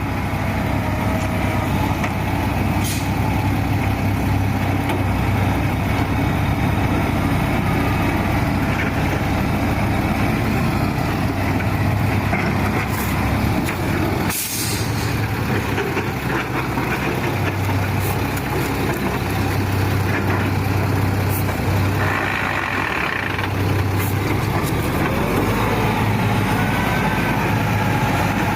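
Logging truck's diesel engine running steadily under load, with a short hiss about halfway through.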